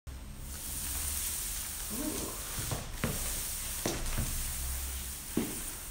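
A steady hiss with a few soft knocks and scuffs, about six of them in the middle of the stretch, as a large jigsaw puzzle is handled and lifted off a marble floor.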